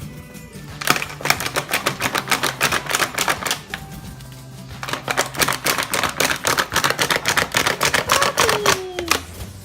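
Rapid clicking, in two long runs of many clicks a second, over background music.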